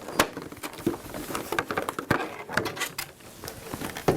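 Handling of packaging and plastic parts: irregular rustling with many small clicks and taps.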